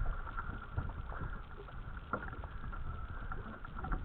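Choppy sea slapping and lapping against the hull of a small dinghy, with small irregular splashes and a rumble of wind on the microphone. A faint steady high-pitched hum runs underneath.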